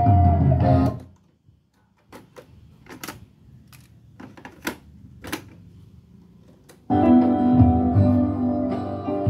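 Music playing from a Technics M6 MK2 cassette deck stops suddenly about a second in, followed by several seconds of scattered clicks and clunks as the deck's transport keys are worked and the cassette is changed; music starts again abruptly near the end.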